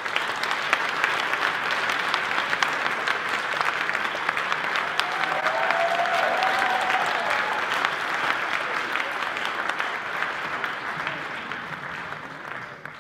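Audience applauding, a dense clatter of many hands clapping that fades away near the end.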